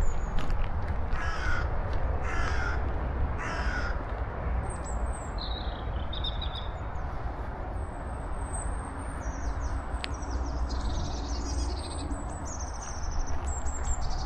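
A crow cawing three times in quick succession near the start, followed by small songbirds chirping with high, thin notes.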